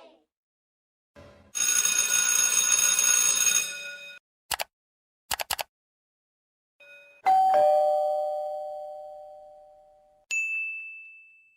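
A string of separate sound effects: a noisy ringing for about two and a half seconds, a few short clicks, then a two-note ding-dong doorbell chime, the second note lower, fading over about three seconds, and finally a single short high ding.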